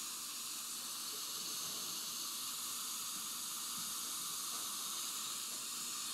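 Dental suction running with a steady, even hiss, drawing air through a NOLA dry-field system, a combined cheek retractor and suction device.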